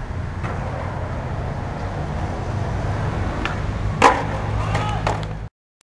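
Skateboard wheels rolling on concrete with a steady low rumble, and one sharp clack of the board about four seconds in. The sound cuts off suddenly near the end.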